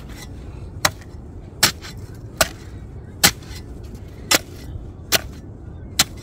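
Steel shovel blade chopping down into a hardened, packed snow pile, about seven sharp strikes, one every second or a little less.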